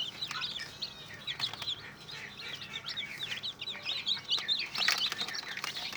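Newly hatched ayam kampung super chicks peeping in an incubator: many quick, high chirps overlapping one another without a break.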